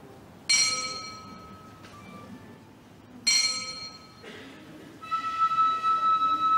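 A metal temple bell struck twice, each strike ringing out in several clear tones and fading over about a second. Near the end a wind instrument starts a held, slightly wavering high note.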